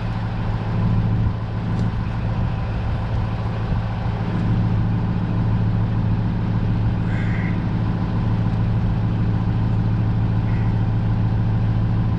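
A steady low mechanical hum, like a motor or engine running at a constant speed, with a few faint small sounds of handling over it.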